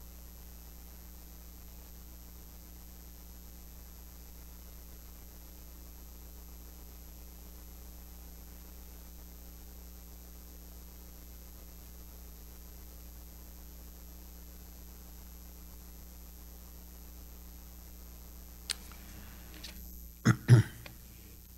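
Steady electrical mains hum from the church's sound system, in the pause between readings. Near the end come a sharp click and then two short, loud thumps close to the microphone.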